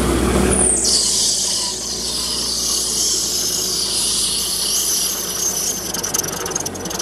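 Gyrocopter engine running, heard from the open cockpit, with a steady high whine and rushing air. The sound changes about a second in, from a lower hum to a brighter, higher one.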